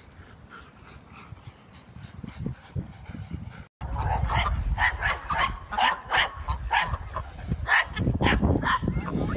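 Dog barking over and over, about three barks a second. The barking starts suddenly about four seconds in, after a faint, quiet stretch.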